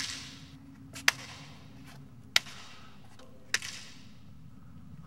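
Four sharp clicks about a second and a quarter apart, each followed by a short fading echo off the surrounding brick buildings, made to sense the open space by echolocation.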